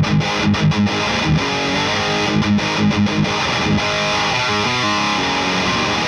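Overdriven electric guitar played through a Friedman Runt 50 tube amp with a Klon-style boost pedal, giving an 80s hair-metal crunch: short, rhythmic stabbed chords for about four seconds, then longer chords left to ring.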